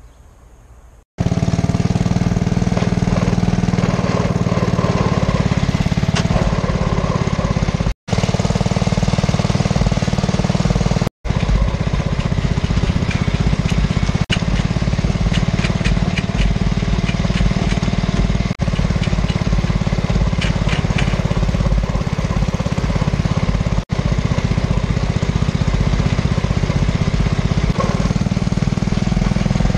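Small engine running steadily at constant speed. It starts about a second in and drops out briefly a few times where short clips are cut together.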